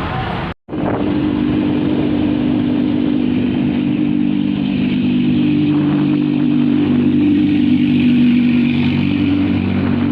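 Hero HF Deluxe's small single-cylinder four-stroke engine running steadily while being ridden, with road noise. The sound cuts out completely for a moment less than a second in.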